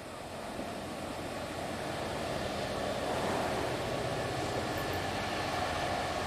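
EWS Class 67 diesel locomotive approaching, its engine noise building steadily louder as it nears.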